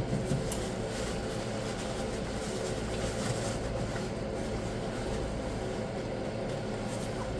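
A steady background hum, with faint chewing and small mouth clicks.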